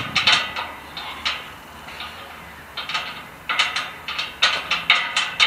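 Steel spiked gate rattling and clicking in quick runs as a person climbs on it and lowers herself down, with a quieter stretch about halfway through.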